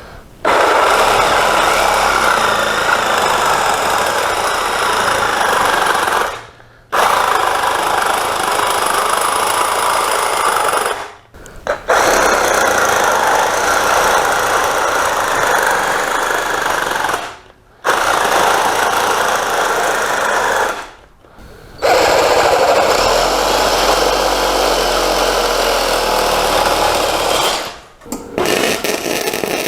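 Wire-feed (MIG) welder laying five steady beads of about four to six seconds each with short pauses between, then a few short sputtering bursts near the end.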